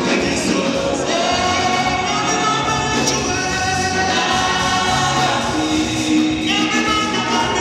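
Gospel church choir singing in harmony through microphones, led by a male lead singer, over steady instrumental backing.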